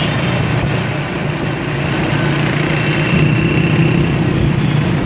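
Small motorcycle engines running steadily at road speed, a constant hum under a rushing noise.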